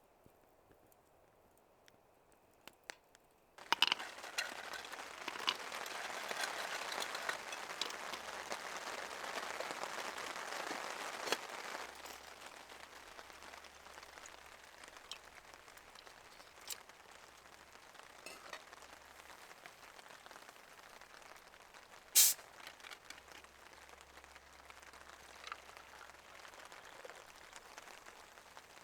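Rain falling, with many small drop ticks in a steady hiss, starting suddenly about four seconds in, heavier at first and easing to a softer patter about halfway through. A single sharp tap stands out near the end.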